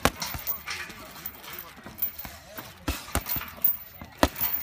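Boxing gloves punching a heavy punching bag: a handful of sharp thuds at uneven intervals, the loudest near the end.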